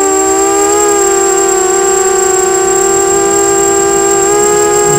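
Brushless motors and propellers of a 250-size FPV quadcopter whining in flight, heard from the onboard camera: a steady, loud, high-pitched whine whose pitch wavers slightly with throttle, with a thin constant high tone above it.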